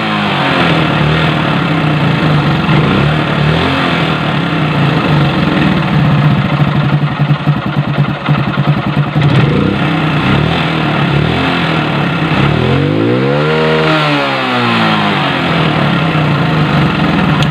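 Hero Honda Glamour's single-cylinder four-stroke motorcycle engine idling, run after an oil change so the fresh oil reaches all the parts. About thirteen seconds in it is revved once, rising and falling back to idle.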